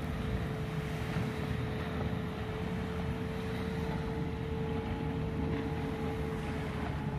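Wind rumbling on the microphone over the steady drone of a distant speedboat's engine as it tows a parasail; the drone fades out near the end.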